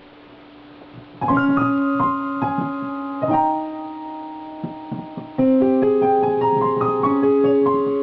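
Piano music: a slow melody over sustained chords, beginning about a second in, with a new chord struck roughly every two seconds.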